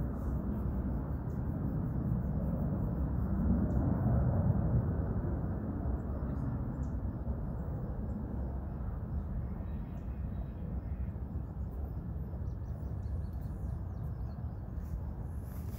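Wind buffeting the microphone in a low rumble, gusting hardest about four seconds in and then easing to a steadier blow.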